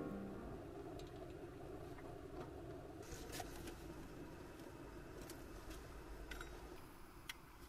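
Quiet background hum with a few faint, scattered clicks and taps, like small objects being handled. Background music fades out at the start.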